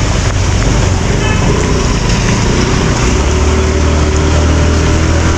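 Steady rush of wind and road noise from riding a motorcycle, with the engine's low hum underneath, which grows stronger a little past halfway.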